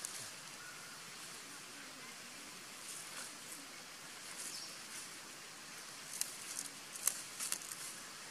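Dry leaves crackling and rustling as a macaque picks through them on the ground, with a few sharp crackles close together about six to seven and a half seconds in, over a steady outdoor hiss.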